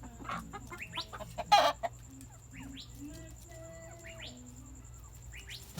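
Chickens clucking, with short rising chirping calls throughout. A brief loud, harsh burst about a second and a half in stands out above the clucking.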